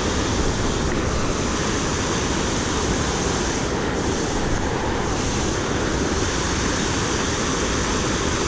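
Steady rushing noise of creek water flowing, even and unbroken throughout.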